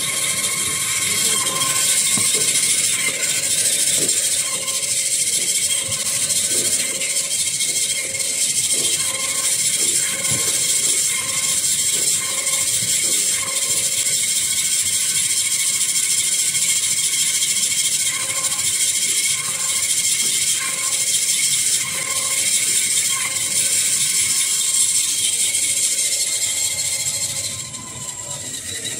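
Band saw of a manual tissue-roll cutting machine running, its blade slicing through toilet-paper and kitchen-towel logs: a loud steady high hiss with a few steady whining tones. It gets quieter shortly before the end.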